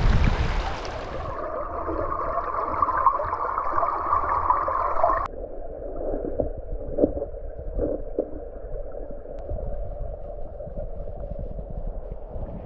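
River water running over a stony bed, then heard through an underwater camera: about a second in the sound turns muffled, and after about five seconds it becomes a dull underwater gurgling wash with a few soft knocks.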